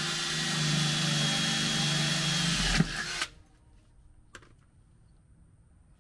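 Ryobi cordless drill running steadily, drilling up into the truck's aluminum crossmember, then stopping a little past three seconds in; a single short click follows about a second later.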